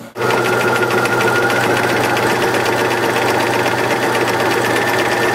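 Bernina mechanical sewing machine running at a steady speed, the needle stitching rapidly through fabric with an even rhythm over a motor whine. It starts abruptly just after the start. The machine is sewing in reverse, locked into backstitch because the manual buttonhole knob has been turned to its backstitch setting.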